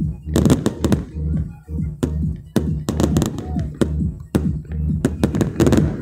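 Aerial fireworks bursting overhead: sharp bangs and crackles, many in quick clusters. Under them runs loud music with a heavy, pulsing bass.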